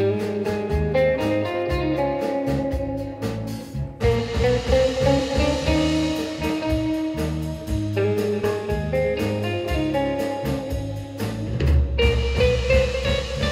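Live rautalanka instrumental: a lead electric guitar plays the melody in long held notes over acoustic rhythm guitar, electric bass and a drum kit, the phrases turning about every four seconds.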